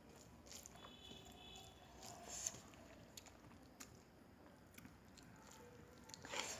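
Faint chewing and soft wet mouth clicks of a person eating rice mixed with fish curry.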